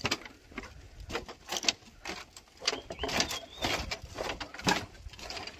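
Footsteps on a woven bamboo-slat footbridge: irregular knocks and creaks of the slats at walking pace. A short high chirp about three seconds in.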